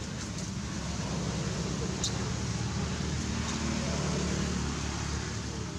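Outdoor ambience: a steady low rumble with faint, indistinct voices in the background and a brief high click about two seconds in.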